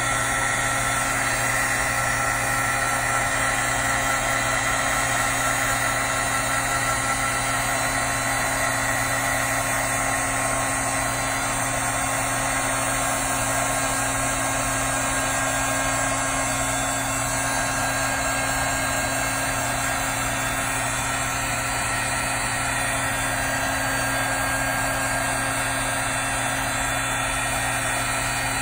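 Handheld craft heat embossing tool (heat gun) running, a steady whirring blow of its fan and heater, held over paper to melt white embossing powder into a raised image.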